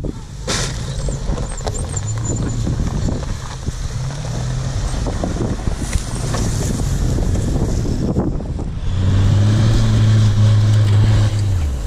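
Off-road 4x4 engines working on a loose slag heap, a steady engine hum with scattered crackles. About nine seconds in, a Mitsubishi L200 pickup's engine is held at steady, louder revs as it climbs the slope, then falls away just before the end.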